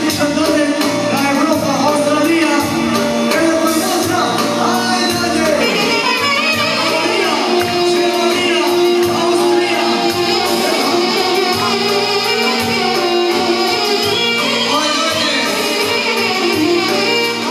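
Balkan Roma music played loud and continuous: a singer over a band, with a steady held low note beneath the melody.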